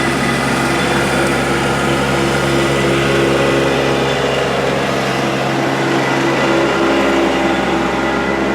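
An engine running steadily at a constant speed, with a steady, unchanging hum.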